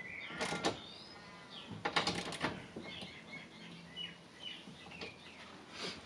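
Small birds chirping in the background: short rising and falling calls, mostly in the second half. A few brief handling noises come about half a second in, around two seconds in, and at the very end.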